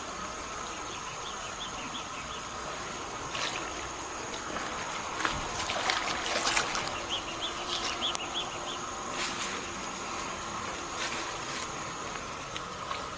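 Steady outdoor insect drone, with two short runs of rapid high chirps. About five to seven seconds in comes a cluster of clicks and rustling.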